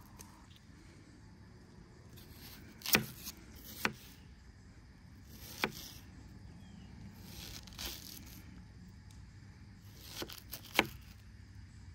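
Sharp clicks and snaps at irregular times, about half a dozen, the loudest about three seconds in and near the end, over a faint steady hiss.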